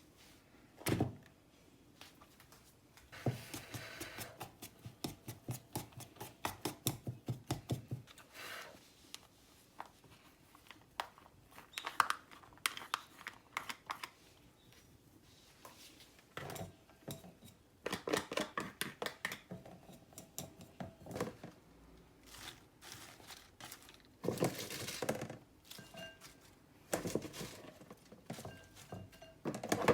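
Kitchen food-preparation noises: a run of quick knocks at about three a second, then scattered clatter and rustling.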